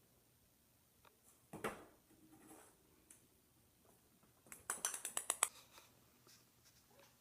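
Munchkin cat making small noises: a short breathy sound about a second and a half in, then a quick run of about eight clicks near the middle.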